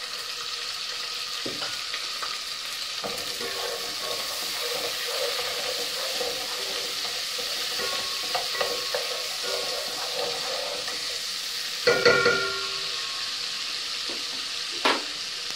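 Cumin seeds and whole spices sizzling steadily in hot oil and butter as they are stirred with a wooden spatula, with a few light knocks. About twelve seconds in there is a brief louder pitched sound.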